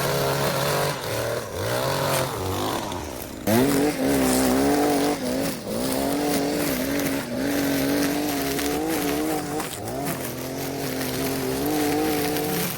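Small petrol engine of lawn-care equipment running under load, its pitch wavering up and down with throttle and load, and climbing sharply about three and a half seconds in.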